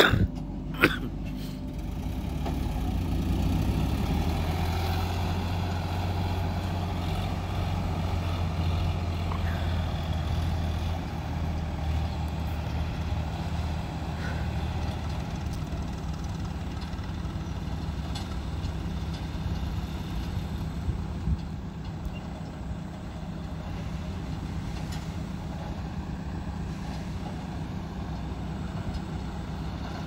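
Diesel engines of a JCB backhoe loader and loaded Sonalika tractors running steadily. The low engine hum is strongest in the first ten seconds, with a single knock about a second in.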